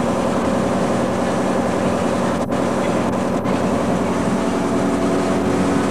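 A boat's engine droning steadily under a loud rushing noise of water and wind, with two brief dropouts near the middle.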